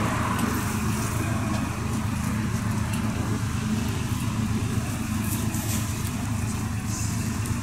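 Scania tour coach's diesel engine idling with a steady, even low hum.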